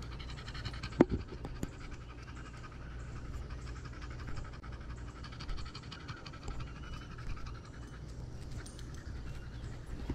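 A dog panting steadily, with one sharp click about a second in.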